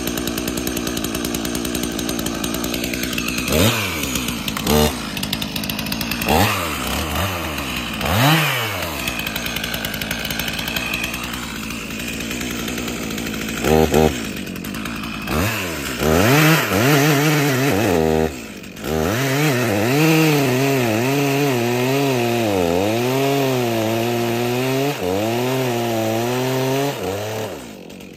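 Stihl MS391 chainsaw engine running with its exhaust spark arrestor screen freshly cleared of carbon, on test for the bogging it had: idling, revved in several short blips, then held at high revs for about ten seconds with the pitch wavering, dropping off near the end.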